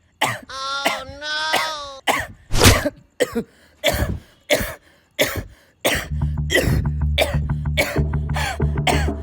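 A person coughing over and over in a long run of sharp coughs, about two a second, with two drawn-out voiced sounds in the first two seconds. From about six seconds in, music with a steady beat plays under the coughing.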